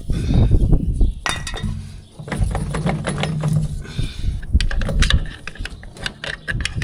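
Metal parts clinking and knocking repeatedly as a row-unit clutch is worked off a corn head's hex shaft, with a low hum under part of it.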